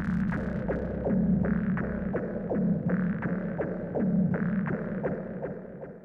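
Hard techno outro from a Korg Volca Drum and Make Noise 0-Coast synthesizer. The heavy kick drops out at the start, leaving a throbbing low synth note that returns about every second and a half over steady light percussion hits, all fading out near the end.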